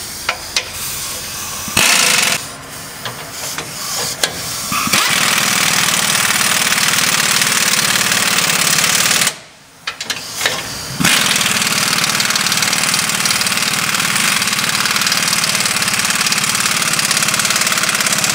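Pneumatic (air) wrench running on the bottom bolts of a snowplow mounting bracket, drawing the kit up tight. It fires in a few short bursts, then runs for several seconds at a time, with a brief pause about nine seconds in.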